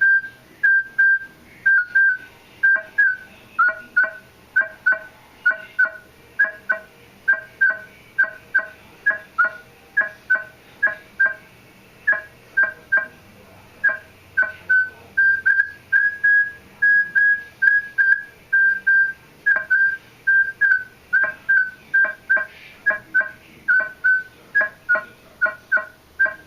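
Minelab E-Trac metal detector sounding repeated short target tones, about two a second, as a quarter is waved back and forth past its coil. Most tones carry a lower, hollow second tone that sounds kinda like a null, like somebody knocking on a piece of tubing; it comes in when the coin is farther from the coil, and its cause is unknown. In the middle there is a run of longer, steadier tones without it.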